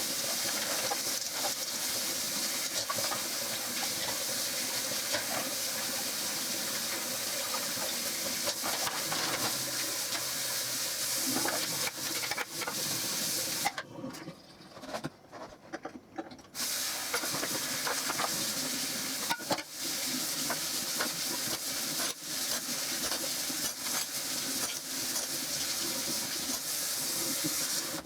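Kitchen tap running into a sink while dishes are washed, a steady hiss of water with small clinks of dishes. The water stops for a few seconds about halfway through, then runs again.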